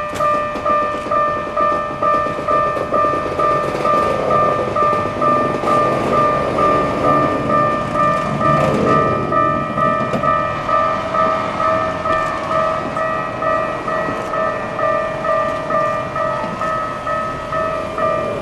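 Japanese railway level-crossing alarm ringing its evenly repeated electronic ding, about two to three strokes a second. Between about four and ten seconds in, a train passes, adding a rumble and a motor whine that glides in pitch.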